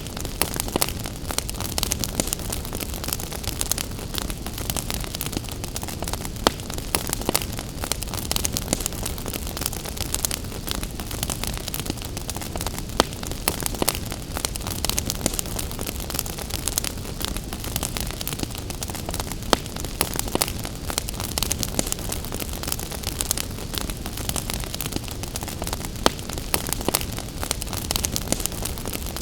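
Wood fire in a fireplace crackling, with frequent sharp pops and snaps over a steady hiss of rain.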